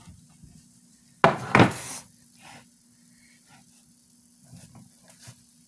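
Glass baking dish set down on a wooden cutting board: a loud double knock about a second in, followed by a few quieter knocks and rubs as it is shifted into place. A faint steady hum runs underneath.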